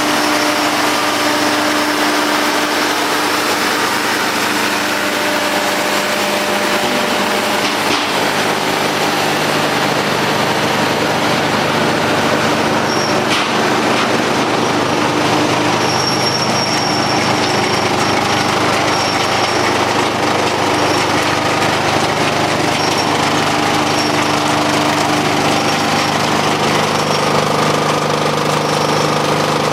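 Tractor-PTO-driven Demuth drum wood chipper running together with its tractor's engine, a loud, steady mechanical din.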